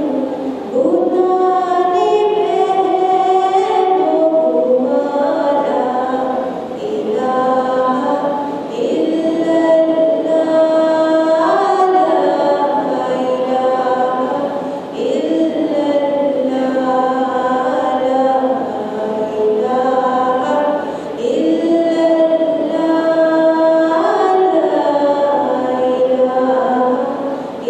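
A woman singing a tarana in Urdu solo and unaccompanied through a handheld microphone, in long phrases of held notes joined by sliding ornaments.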